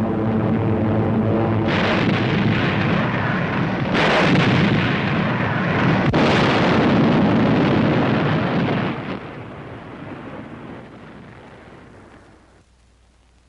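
Twin-engine bombers' piston engines droning overhead, then bombs exploding: three blasts about two, four and six seconds in, their rumble dying away over the last few seconds.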